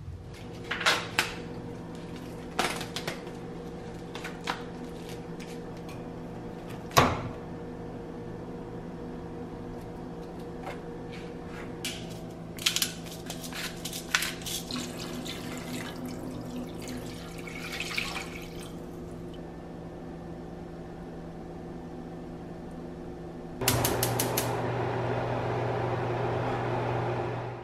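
Kitchen cooking sounds: scattered knocks and clicks of a pot and utensils, with a cluster of short grinding strokes from a spice grinder midway. For the last four seconds a louder steady rushing noise begins with a few clicks and runs over everything else.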